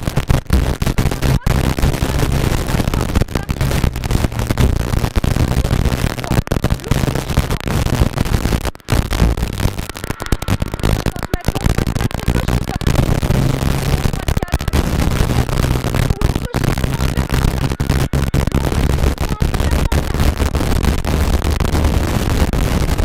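Rally car engine running hard under load, heard from inside the cabin, with dense road and mechanical noise and many short, sudden breaks in the sound.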